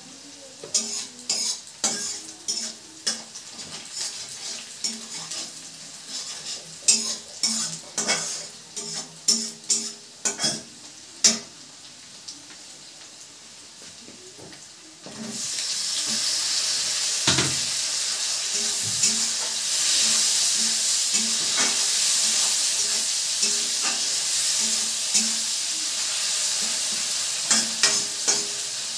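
Sharp clicks and clinks of a metal spatula against a wok (kadai). About halfway through, chopped tomatoes go into the hot oil and a loud sizzle starts suddenly and keeps going while the spatula stirs them.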